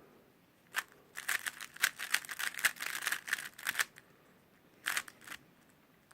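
Speed cube being turned by hand: quick runs of hard plastic clicks and clacks as the layers snap round, dense for about three seconds, then a few more clacks about five seconds in.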